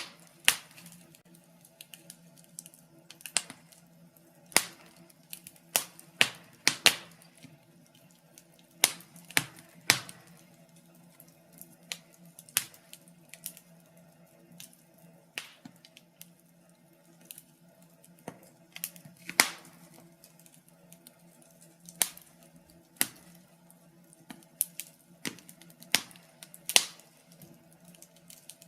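Wood fire in a fireplace crackling, with irregular sharp pops and snaps, sometimes several in quick succession, over a faint steady hum.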